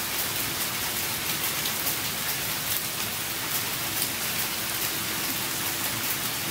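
Steady rain falling: an even hiss with many small ticks of individual drops striking.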